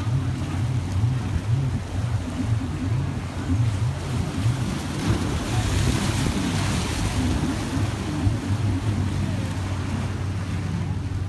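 Wind buffeting the phone's microphone in a low, uneven rumble, over choppy surf washing against the rocks of a jetty; the wash swells about halfway through.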